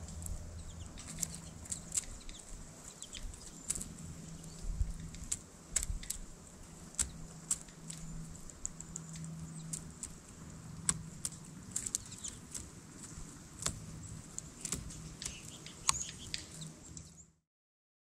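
Downy woodpecker pecking and picking through seed on a mesh tray feeder: irregular sharp clicks and taps of bill on seed, over a faint steady low hum. The sound cuts off abruptly near the end.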